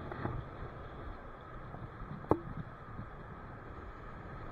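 Ocean surf washing up the beach, a steady rush, with wind on the microphone. A single sharp click about two seconds in.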